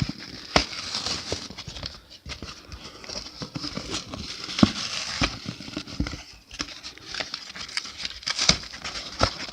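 Plastic blister packaging being handled and pulled open, crinkling and crackling with many scattered clicks and taps.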